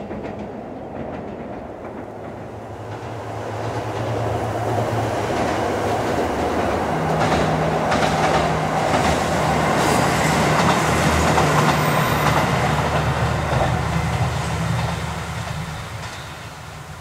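Diesel railcar passing: a low engine note and wheels clacking over the rail joints. It grows louder over several seconds, peaks in the middle and fades away near the end.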